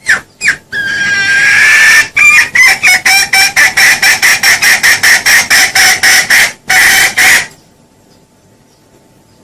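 Junglefowl calling loudly: a few short notes and a drawn-out call, then a fast run of clucks about four a second. A last burst comes about seven seconds in, then it stops.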